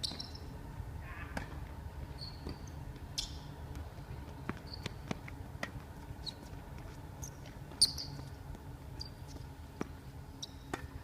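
Play on a court during a racket-sport match: scattered sharp hits and short high squeaks of shoes on the court, over a steady low hum. The loudest hit comes about eight seconds in.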